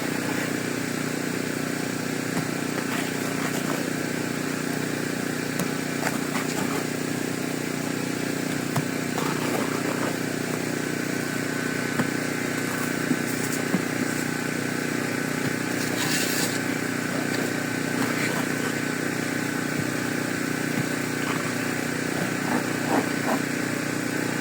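Steady motor or engine hum, unchanging in pitch, with scattered light clicks and taps over it.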